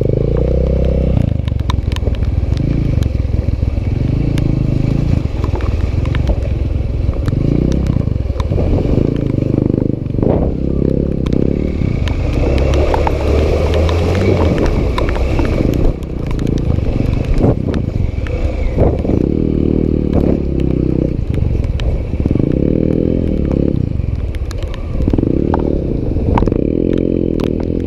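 Small single-cylinder dirt bike engine running as it is ridden, its note rising and falling with the throttle, with scattered clattering knocks.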